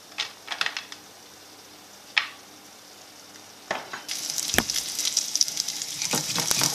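A few light clicks and knocks as chorizo slices go into a nonstick frying pan, then from about four seconds in the chorizo sizzles and crackles loudly as it fries in its own fat.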